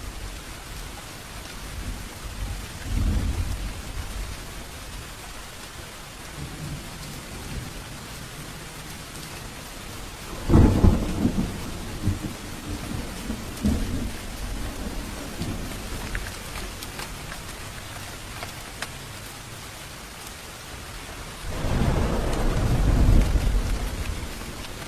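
Steady heavy rain falling, with thunder: a low rumble about 3 s in, a sharp close crack that rolls into rumbling about ten seconds in, and a longer rolling rumble near the end.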